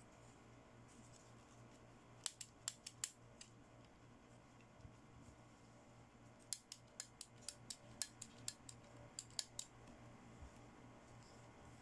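Scissors snipping in short sharp clicks: a few snips, a pause of a few seconds, then a longer run of about a dozen snips.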